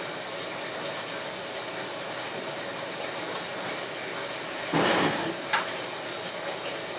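Paper towel rubbing petroleum jelly along a balsa-stick frame: faint light handling ticks, then a brief louder rustle just before five seconds in and a sharp click just after, over a steady background hiss.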